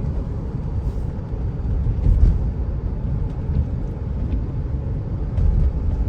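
Steady low rumble of a car driving along, heard from inside the cabin: engine and tyre noise on the road.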